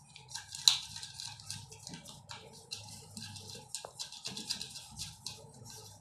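Irregular light clicks and rattles of small metal parts handled by hand, as a nut is fitted onto a ceiling fan's mounting hardware.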